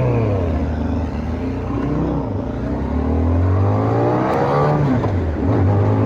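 Yamaha XJ600S Diversion's air-cooled inline-four engine pulling away, its pitch climbing with each gear and dropping at the shifts, with one long rise about two-thirds of the way through.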